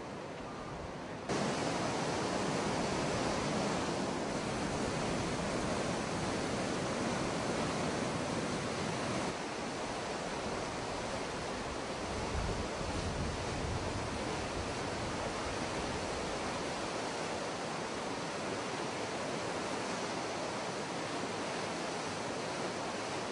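Floodwater of a swollen stream rushing in full spate, a steady noisy rush of turbulent water that jumps louder about a second in.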